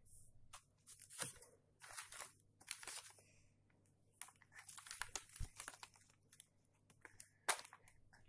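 Crumpled newspaper wrapped round a plastic bottle crinkling and rustling as it is handled, in faint short irregular spells, with one sharper crackle near the end.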